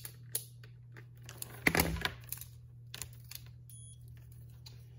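A digital multimeter and its test leads being handled on a wooden workbench: scattered clicks and knocks, the loudest a clatter about two seconds in as the meter is set down, then a brief high electronic beep near the end. A steady low hum runs underneath.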